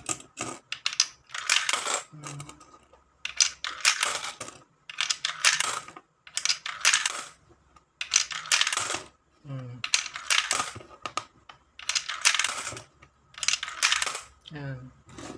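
10-peso coins dropped one after another into a universal multi-coin acceptor, about one every second or so, each clinking through the mechanism and into the coin tray. The acceptor is in calibration mode, learning the 10-peso sample coins on its third channel (E3).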